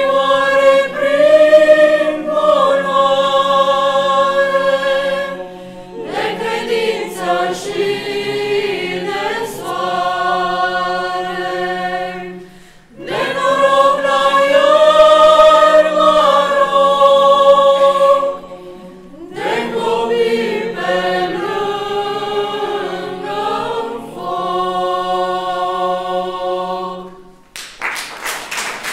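Mixed church choir of women's and men's voices singing a Romanian Christmas carol (colindă) without instruments, in four long phrases with short breaks between them. The singing ends shortly before the close and applause breaks out.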